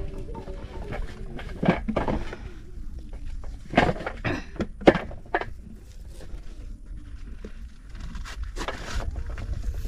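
A knife cutting through pumpkin rind and flesh on a metal tray: a series of short, sharp cuts, scrapes and clicks, clustered a few seconds in, with one more near the end. Under them is a steady low rumble.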